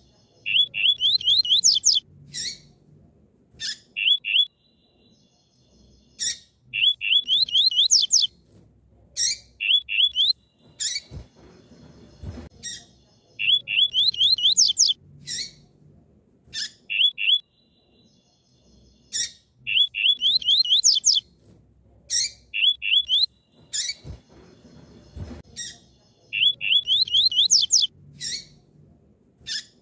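Female double-collared seedeater (coleiro) calling: a run of quick, high, down-slurred chirps followed by chirps that climb higher, with single sharp notes between. The phrase repeats about every six seconds.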